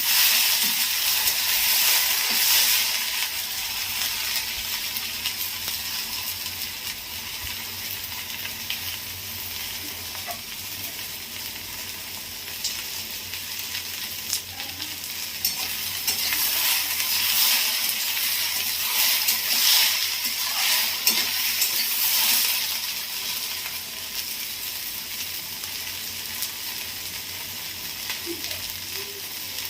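Sliced okra frying in hot oil in a kadai, a steady sizzle that grows louder twice, near the start and about two-thirds of the way through, with small clicks as a spatula stirs it.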